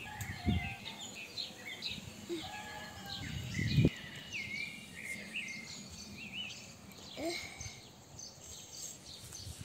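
Small birds chirping and singing throughout, with a couple of low thumps in the first four seconds, the loudest just before four seconds in.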